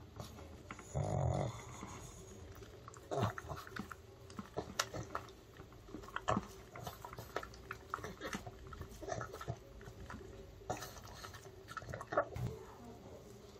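Pug licking and smacking at a gloved hand: a string of short, irregular wet mouth clicks and smacks, with one louder, longer noise about a second in.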